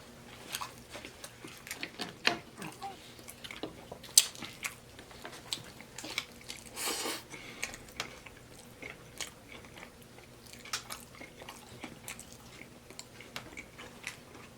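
Close-miked chewing and lip-smacking while eating a taco salad, with irregular crisp crunches of the baked tortilla shell and a longer crunch about seven seconds in.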